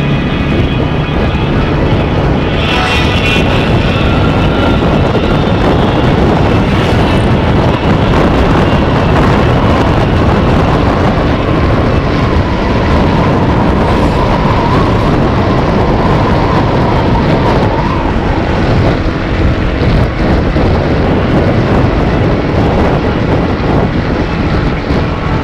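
Loud, steady wind rushing over the microphone, mixed with the road and engine noise of a moving vehicle.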